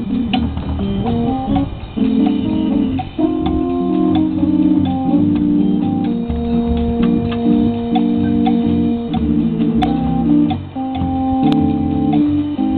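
Electric organ playing a bossa nova tune in sustained, held chords that change every second or so, with a drum kit lightly keeping time.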